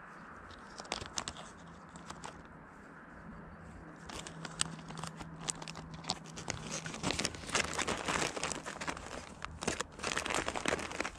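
Plastic packaging crinkling and rustling as soft plastic lures are rummaged through and picked out. The crackling starts sparse and gets busier and louder in the second half.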